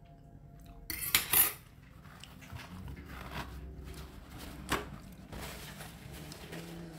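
Snail shells and tableware clattering against a plate and foil tray, a short burst of clinks about a second in, followed by faint, scattered handling noises.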